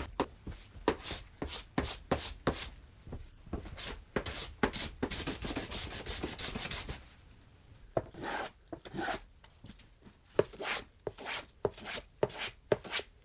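Hand plane shaving the wooden frame of a frame-and-panel door in short strokes, each a quick rasping pass, with a denser run of strokes in the middle.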